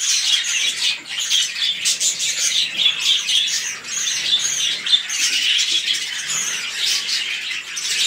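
A flock of budgerigars chattering: a dense, unbroken run of short high chirps and calls, several a second.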